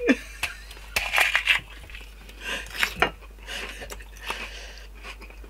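Raw onion being bitten and chewed, with several crisp crunches in short bursts.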